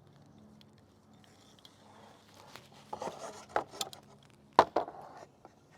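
Rope being handled and threaded through the pulleys of a block and tackle: rustling and rubbing with several sharp clicks and knocks, the loudest about three-quarters of the way through, over a faint steady low hum.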